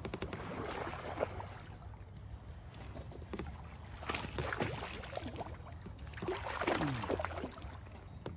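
A hooked largemouth bass splashing and thrashing at the surface beside a float tube as it is reeled in, in irregular bursts about a second in, around four seconds and again around six to seven seconds.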